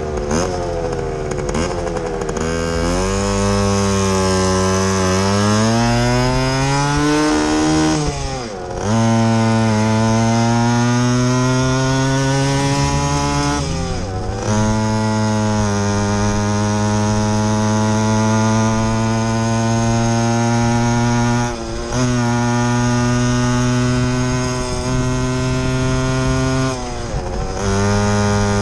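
Yamaha YG5T Trailmaster's small two-stroke single-cylinder engine pulling away from a stop. Its pitch climbs through the gears, dropping at the shifts about 8 and 14 seconds in. It then runs at a steady cruising speed, broken by brief lifts of the throttle near the end.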